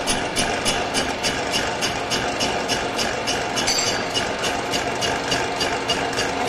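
Belt-driven heavy-duty metal lathe running, its four-jaw chuck spinning a steel shaft, with a steady machine hum and a regular clacking about four times a second.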